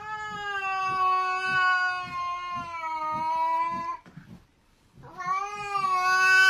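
A cat yowling in two long, drawn-out calls at a nearly steady pitch: the first lasts about four seconds, the second begins after a short pause about five seconds in. It is a cat's stand-off yowl aimed at another cat.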